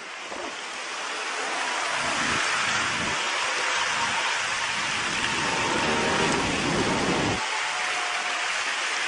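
Steady rushing noise with wind buffeting the microphone. A low rumble swells in after about two seconds and drops away suddenly about seven seconds in.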